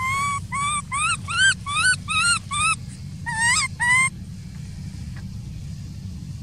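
Baby macaque crying: a quick run of short, high-pitched, upward-sliding cries, about seven in under three seconds, then two more a moment later before it falls silent.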